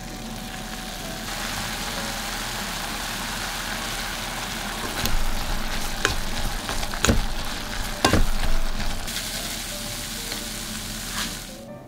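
Carrot and root-vegetable strips sizzling as they are stir-fried in a cast-iron pot while the seasoning liquid boils away. A wooden spatula knocks and scrapes against the pot several times in the middle. The sizzle grows louder about a second in and cuts off suddenly near the end.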